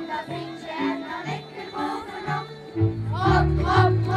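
Folk dance music playing: a melody of held notes, with a heavier bass line coming in about three seconds in.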